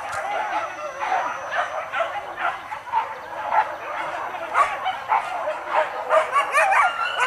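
A pack of hunting dogs yelping and baying, several voices overlapping, as they chase a wild boar through the brush. The cries grow denser and louder in the second half.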